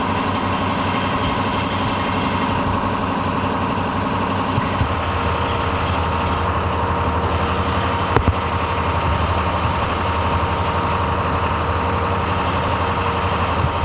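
A large vehicle's engine idling steadily, with a brief knock about eight seconds in.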